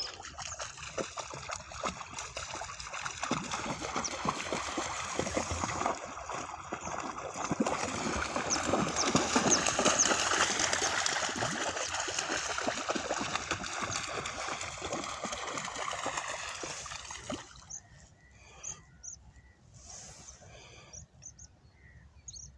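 Two dogs splashing and running through shallow water, a dense run of sloshes and splats that is loudest midway and stops about three-quarters of the way through, leaving only faint scattered sounds.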